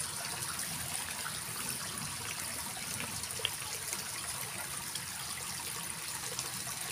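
Water trickling steadily in a small irrigation ditch, with one faint click about three and a half seconds in.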